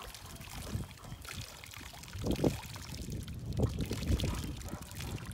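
Pool water splashing and sloshing unevenly as a German Shorthaired Pointer paddles through it with a ball in its mouth.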